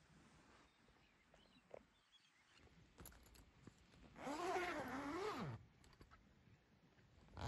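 Tent door zipper being drawn open in one pull of about a second and a half, its rasp rising and falling in pitch as the pull speeds and slows.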